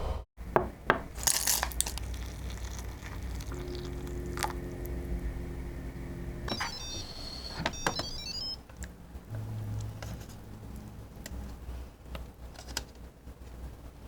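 Electric pressure cooker's control panel beeping: a quick run of short, high electronic beeps at different pitches, after a few sharp clicks of handling the pot.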